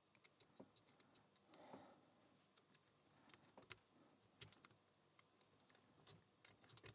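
Faint scattered clicks and ticks of metal lock picks and a tension tool working inside a cheap padlock's core, a few irregular taps a second apart.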